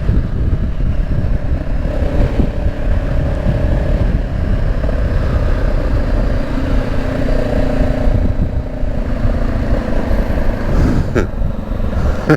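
Honda CB500X's parallel-twin engine, fitted with an aftermarket exhaust, running while the bike is ridden, under a dense steady low rumble. A few sharp clicks come near the end.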